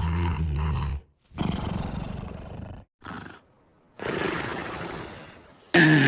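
Exaggerated cartoon snoring from a big dog: a loud low rattling snore, then long breathy breaths out and a short snort, and another loud snore starting near the end.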